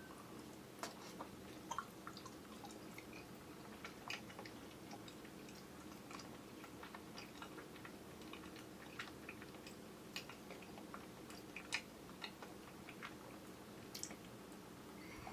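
Chewing of soft, chewy grape jelly, a scatter of faint wet clicks and smacks, picked up by the camera's built-in microphone over a steady low room hum.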